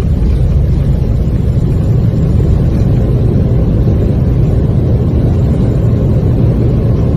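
Airplane during takeoff: a loud, steady, low roar of engines and rushing air, unchanging throughout.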